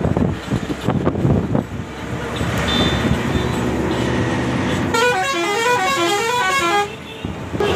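Bus driving along a road, with wind and road rumble at the open window. About five seconds in, a musical multi-tone vehicle horn plays a quick run of stepped notes for about two seconds.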